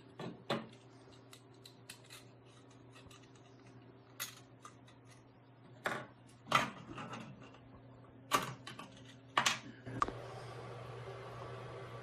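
Irregular sharp clicks and knocks of small hard objects being handled, a dozen or so scattered through, over a steady low hum; near the end a steady hiss starts.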